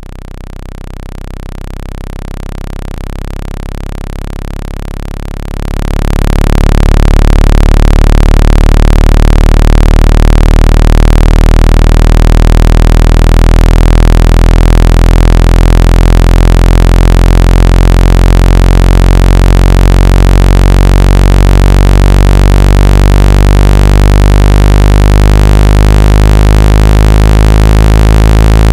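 Synthesized low-frequency tone of the kind played to shake water out of a phone speaker: a steady low hum with a stack of overtones above it. It rises slowly over the first few seconds, then jumps to full loudness about six seconds in and holds steady.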